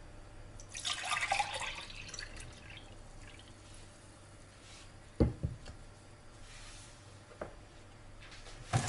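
Milk splashing as it is poured for a second or two. A sharp knock follows about five seconds in, and a lighter click comes later.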